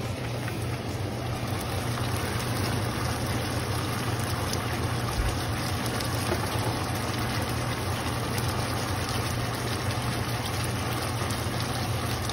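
Sauce simmering in a nonstick frying pan as it thickens, a steady hiss with faint ticks of bubbling, over a steady low hum.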